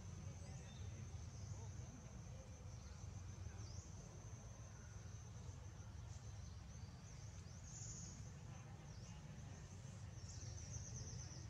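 Insects chirring steadily in one high, thin band, with a few brief higher chirps, over a low steady rumble of background noise.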